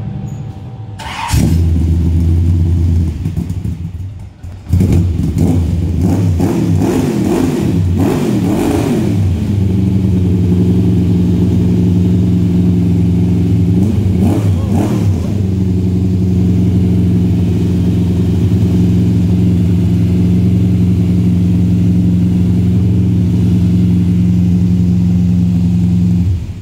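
Corvette race car engine, heard through its side-exit exhaust pipes, starting about a second in, revved several times, blipped once more around the middle, then idling steadily until it is switched off at the very end.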